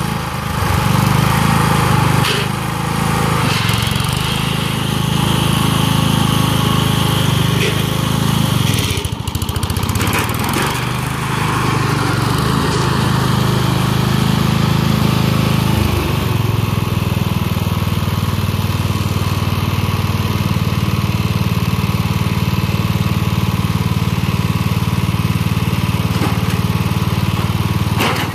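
Bolens G-14 lawn tractor's engine running steadily while the tractor pushes an old grill with its front blade. The engine note dips and shifts around nine seconds in and again around sixteen seconds.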